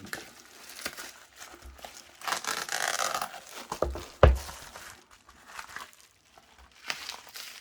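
A smartphone retail box being handled: packaging rustles and crinkles, with about a second of dense crinkling a couple of seconds in. A single sharp knock about four seconds in is the loudest sound, and light handling clicks follow.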